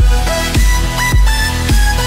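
Background music: a deep bass beat about twice a second under synth notes that slide up in pitch and then hold.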